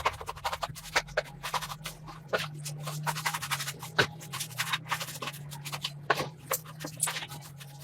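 Irregular scraping and scratching strokes over a steady low hum, typical of hand or small-tool work on a surface.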